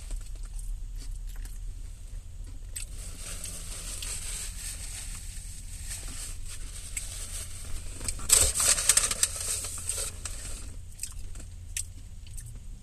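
Paper rustling and crinkling as a tortilla chip is fetched from its bag, loudest about eight to nine seconds in, with small clicks, over a steady low hum.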